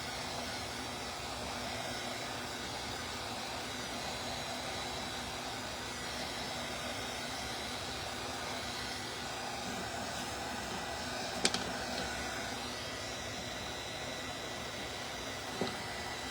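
Steady background hiss with a faint hum underneath, and a single sharp click about eleven and a half seconds in.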